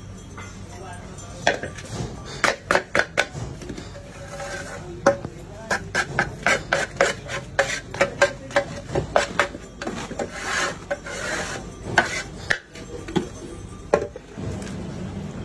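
Repeated sharp wooden taps and knocks, irregular at about two to three a second, from a wooden dropper pipe used to drop hot sugar syrup into rows of batasha, with some scraping and stirring sounds between.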